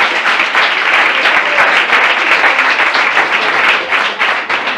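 Audience applauding with many hands clapping densely, thinning a little near the end.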